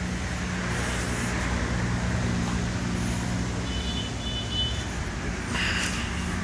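An engine running at a steady speed, an even low hum. A few faint short high chirps come about four seconds in.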